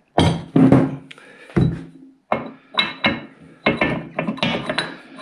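Steel pivot pin and bushes from a mini digger's dipper arm being handled: a string of irregular sharp metallic knocks and clinks, some ringing briefly, with one heavier thump about a second and a half in.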